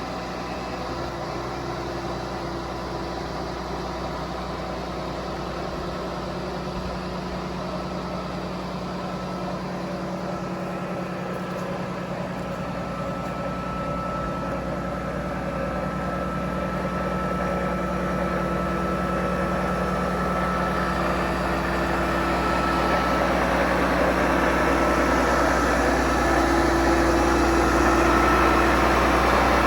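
Truck engine running steadily with road noise while driving, with a low hum and a few steady tones, growing louder through the second half as the engine works harder.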